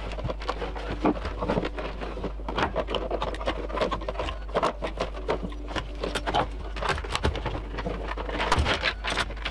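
Irregular clicks, knocks and scraping of sealed lead-acid UPS batteries being pulled out of a clear plastic battery tray and handled on a workbench, over a steady low hum.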